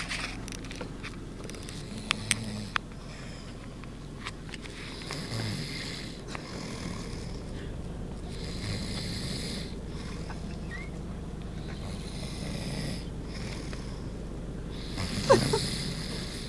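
Snoring in slow, regular breaths, one rasping snore about every three to four seconds, with the loudest snore near the end.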